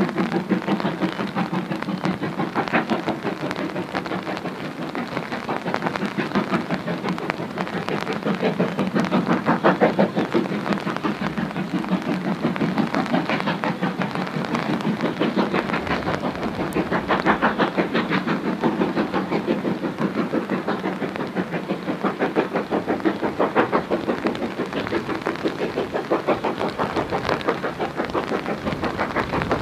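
BR Standard Class 4MT steam locomotive working its train with a rapid, even exhaust beat, heard through steady rain.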